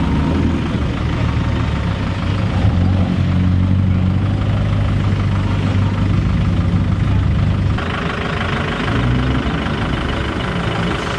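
Car engine idling with a steady low hum. About eight seconds in, a higher, hissier sound joins it for about three seconds.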